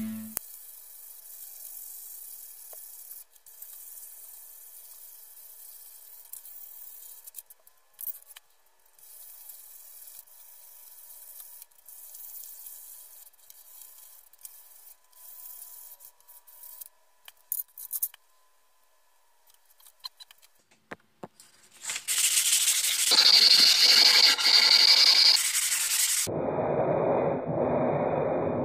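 Sandpaper rubbing along a wooden diddley bow neck: faint at first, then loud steady sanding for about four seconds near the end. It is followed by a different steady rushing noise.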